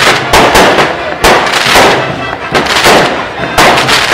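Aerial fireworks shells bursting in quick succession: a string of loud bangs, each fading off in a crackling hiss as the next one hits.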